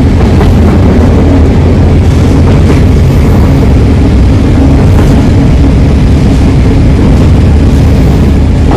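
Inside a local train carriage under way: a steady, loud low rumble of the running train.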